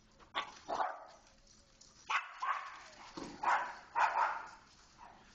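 Dogs barking: about eight short, sharp barks, coming in pairs and small clusters roughly a second apart.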